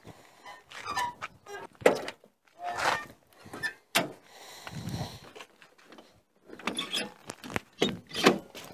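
Clicks, knocks and rustling from handling the doors of a 1974 Cadillac hearse. Near the end there is a cluster of sharp clicks as the rear side door's handle is pulled and its latch releases.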